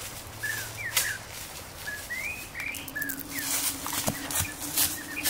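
Woodland sounds: scattered short bird chirps, with a few sharp rustling crackles like steps in dry leaf litter. A low steady hum comes in about halfway through.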